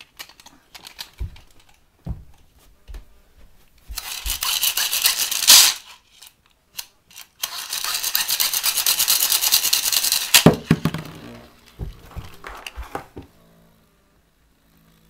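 Hasbro Rev Up launcher being revved: two long runs of very fast ratcheting clicks, each ending in a sharp clack. After the second clack the Ray Unicorno Beyblade knocks and spins around the clear plastic stadium for a few seconds, then goes quiet.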